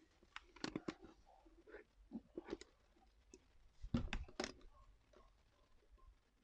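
Scattered light clicks, taps and rustles of small objects being handled and rummaged through, with a louder cluster of knocks about four seconds in.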